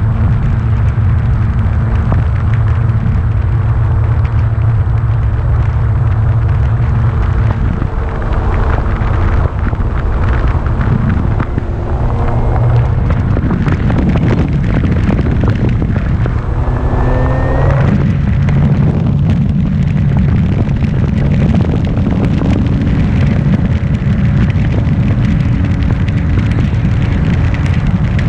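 Heavy wind buffeting the microphone throughout. A steady motor hum runs underneath and rises in pitch about two-thirds of the way through.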